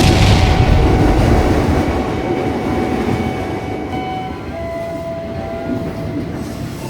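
Electric commuter train passing: a heavy rumble, loudest at the start and dying away over a few seconds, with steady whining tones over it.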